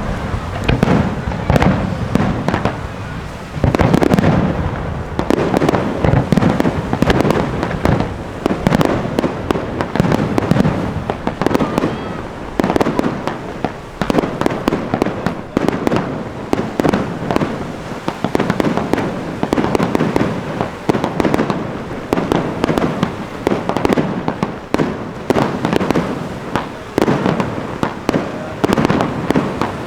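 Aerial firework shells being fired and bursting in a dense, unbroken barrage of overlapping bangs.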